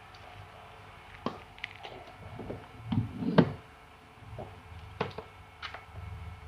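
Scattered clicks and knocks of objects being handled and set down, with a louder clattering cluster about three seconds in.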